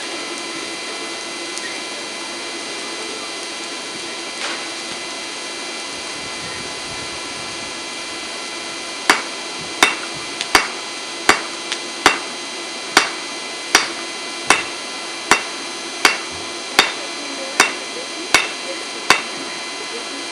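Hammer forging a railroad spike: about fourteen ringing blows at a steady pace, roughly one a second, starting about nine seconds in. A steady background hum runs under them.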